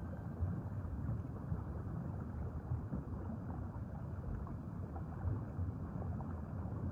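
Underwater ambience: a low, steady rush and rumble of water noise, with no music or voice.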